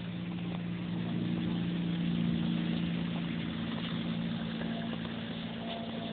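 A motor vehicle's engine running with a steady low hum that grows louder over about two seconds and then slowly fades.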